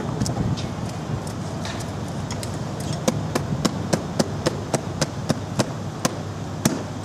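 A quick run of light, sharp clicks, about three or four a second, lasting a few seconds from about three seconds in, over a steady low hum.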